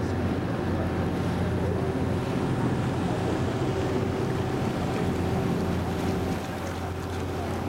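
Passenger boat's engine running with a steady drone, water rushing along the hull and wind buffeting the microphone. The engine note eases and drops about six seconds in.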